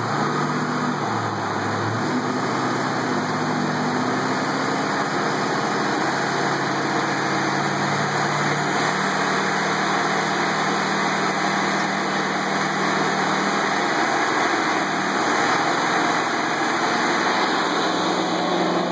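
Ford 6.4 L Power Stroke twin-turbo V8 diesel running steadily at low speed, its low engine note shifting only slightly, over a constant rushing noise.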